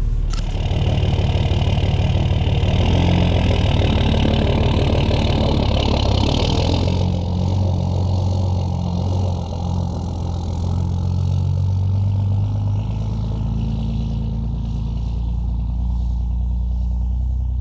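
Diesel pickup truck engine running, its pitch shifting up and down a few times, as when the truck is driven off.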